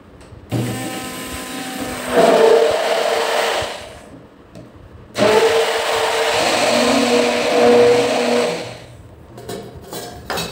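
AGARO Marvel 800 W hand blender running at its lowest speed in a plastic beaker of curd, blending the clotted curd smooth like lassi. It runs in two bursts of about three seconds each with a short pause between them, and the first burst gets louder about a second and a half in. A few light knocks near the end.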